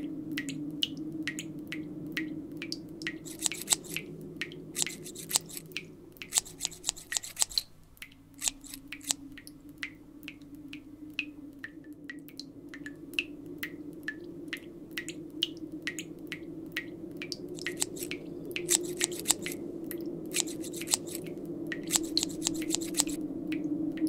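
Barber's scissors snipping hair: single snips about twice a second, broken by several quick runs of rapid snips, over a steady low hum.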